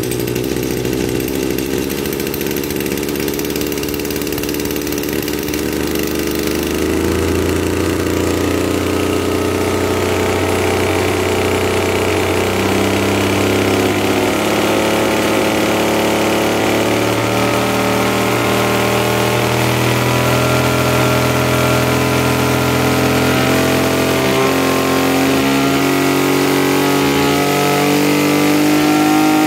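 Maruyama MB260 brush cutter's 26cc two-stroke engine running steadily, first at idle, then with its pitch rising slowly through the second half as the engine speeds up.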